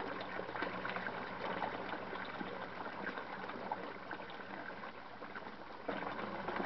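Water from a flood-and-drain grow bed's bell siphon pouring out of a drain pipe and splashing into the sump tank, a steady gush as the bed nears the end of its drain. It eases a little, then picks up again about six seconds in.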